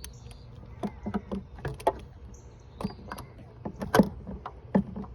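Irregular clicks and clunks of hands and tools handling parts at the engine's oil filter, about ten scattered knocks over a low, steady rumble.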